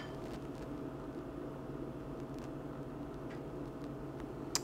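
Steady low hum with a faint constant tone running through it, and a short click near the end.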